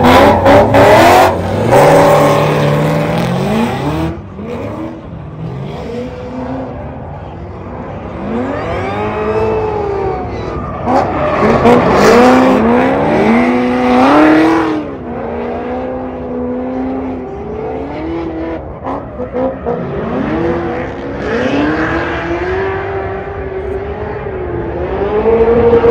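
Two drift cars' V8 engines revving hard, their pitch rising and falling again and again as the cars slide in tandem with smoking tyres. They are loudest at the launch, fade as the cars move off, and swell again near the end.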